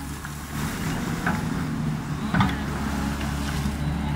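Yutong YT210.8 crawler excavator's diesel engine running under load as the hydraulics lift a bucket of wet gravel, getting louder about half a second in. A few short knocks, the loudest about two and a half seconds in.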